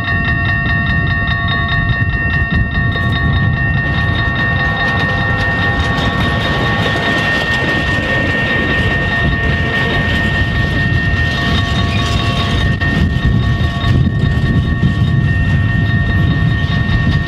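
Level-crossing bells ringing steadily while a diesel shunting locomotive hauling tank wagons passes over the crossing. The engine's low rumble runs throughout, and the noise of the train rolling across the crossing comes in about four seconds in.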